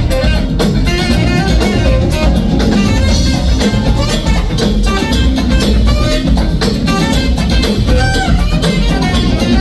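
A band playing loud, continuous music with a steady drum beat.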